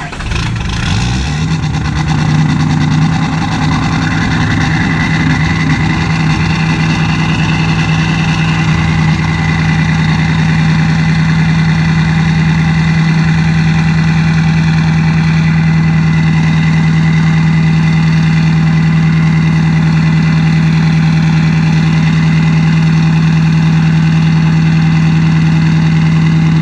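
Diesel pickup truck engine catching on a cold start at about 3 °F. It runs unevenly for a couple of seconds, then settles into a steady fast idle, held at about 1200 rpm by a tuned cold-start high idle that makes the engine warm up before it idles down.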